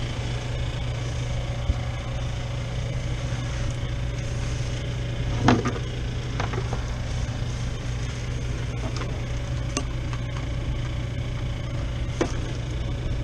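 Freezer's refrigeration equipment running with a steady low hum and a few sharp clicks, the loudest about five and a half seconds in.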